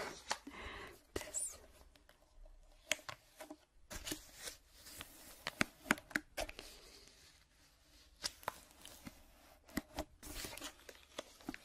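Close-miked ASMR trigger sounds: irregular sharp crackles and taps.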